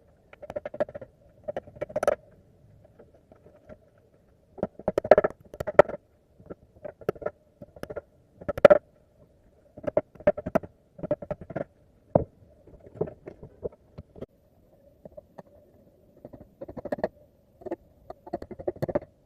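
Irregular knocks, taps and short scrapes of hand work on wood, coming in uneven clusters with brief pauses between them.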